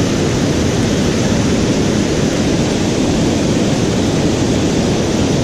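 Loud, steady rush of white water pouring over a river weir and churning in the foam below it.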